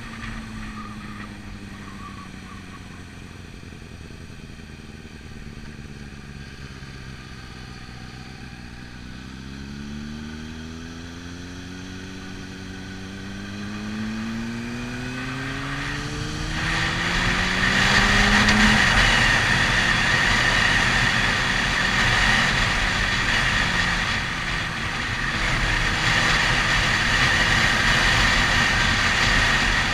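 Motorcycle heard onboard, its engine at low revs, dipping in pitch and then climbing steadily for about ten seconds as the bike accelerates. About halfway through, loud wind noise on the microphone, with a steady whistle in it, rises and takes over as speed builds.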